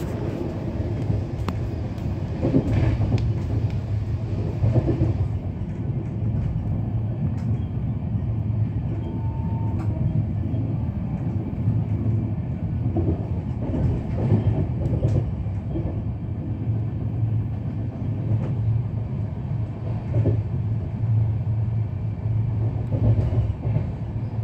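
Indian Railways express train coach running at speed, heard from inside the coach: a steady low rumble with scattered, irregular clacks from the wheels on the track.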